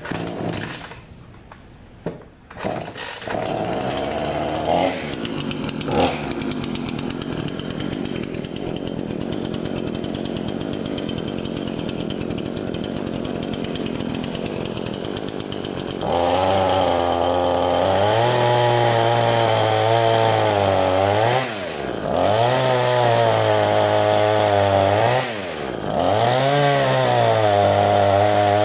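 Craftsman 18-inch two-stroke gas chainsaw starting about three seconds in and idling steadily. About sixteen seconds in it revs to full throttle and cuts through a small log, the revs dropping and climbing back twice.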